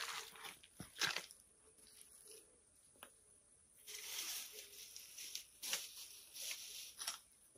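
Scattered rustling and crackling with soft clicks and thuds, and a brief hissy swell about four seconds in.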